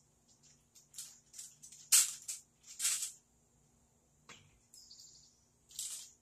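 Scattered clicks and taps of tongs and chicken drumsticks against metal sheet pans as the pieces are moved on the grill. The sharpest tap comes about two seconds in. A short high chirp sounds around five seconds in.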